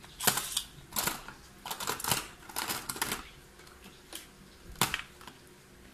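Hard plastic Beyblade launcher and top parts clicking and clattering as they are handled and fitted together: a string of irregular sharp clicks, some in quick clusters.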